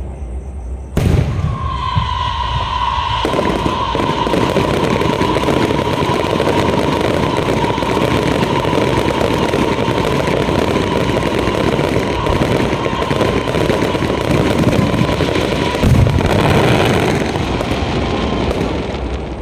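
Aerial fireworks barrage: a sudden bang about a second in, then a long run of dense crackling and popping with a steady high whistle-like tone over it. A heavier burst comes near the end, and then the sound fades.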